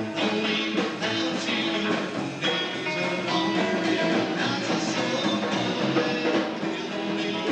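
Rock band playing: guitars and a drum kit with singing.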